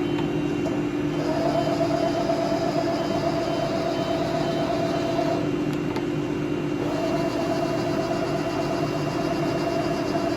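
Romi M27 CNC lathe running with a steady hum, while an axis drive whines through two traverse moves of about four seconds each, separated by a short pause.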